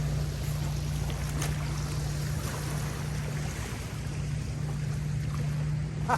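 A steady low drone under a wash of wind noise on the microphone, dipping briefly a little past halfway.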